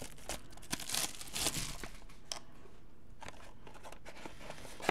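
Clear plastic wrapping on a trading-card box crinkling and tearing as the box is unwrapped, in a run of short scratchy rustles over the first two seconds, then quieter handling and a sharp click near the end.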